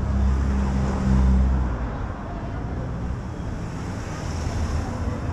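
A motor vehicle's engine running close by, a steady low hum that is loudest about a second in and fades out by about two seconds, over constant city traffic noise.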